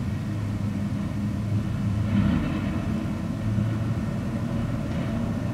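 Steady low rumble with a constant low hum on a deep-level London Underground platform, holding level throughout.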